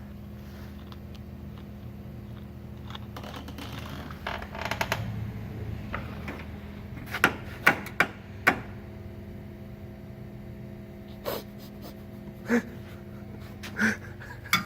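Scattered sharp clicks and taps of a tool or test probe touching the car's metal, a quick cluster about four seconds in and then single taps every second or so, over a steady low electrical-sounding hum.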